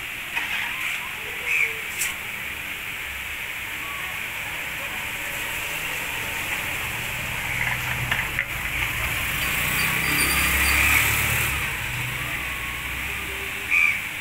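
Busy street-food stall ambience: a steady hiss, indistinct background voices and a few light clicks, with a low rumble that swells and fades about halfway through.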